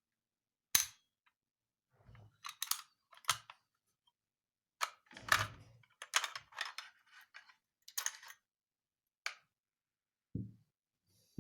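Metal clicks and clacks of a Blow F92 blank pistol being handled and taken apart: a sharp click about a second in, then a string of rattling clacks and sliding parts, and two dull low knocks near the end.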